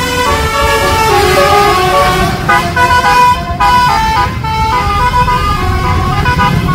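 A bus's 'telolet' horn, a set of multi-tone air horns, playing a quick tune of stepped notes over the low rumble of the bus engine, with a couple of brief breaks about halfway through.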